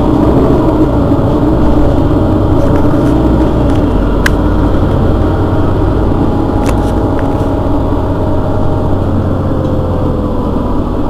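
Mercedes-Benz Citaro city bus's rear-mounted engine idling steadily while the bus stands still, with two short sharp clicks about four seconds in and again a few seconds later.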